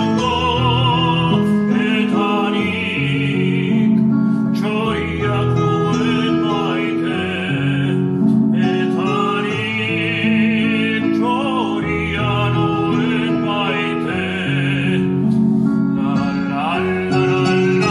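Music: a slow song, a voice singing with strong vibrato over a sustained instrumental accompaniment.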